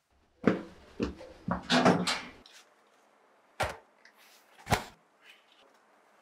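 Cardboard pizza box handled and set down on top of a countertop oven: a cluster of knocks and rustling, then two sharp clicks about a second apart.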